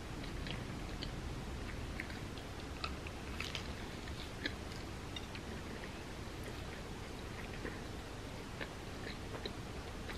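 Close-miked chewing of a bite of vegan grilled cheese sandwich dipped in tomato soup, with irregular small clicks and crunches of the toasted bread.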